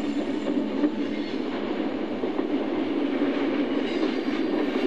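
Chessie System diesel freight train passing: a steady rumbling noise of engine and rolling wheels with faint clicking.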